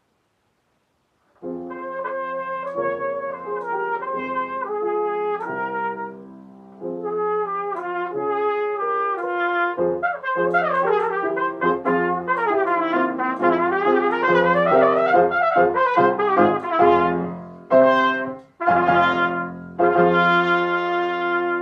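Solo trumpet played unaccompanied. After a second and a half of silence comes a phrase of held notes, then quicker moving passages in the middle, and near the end two separated notes, the last one long and held.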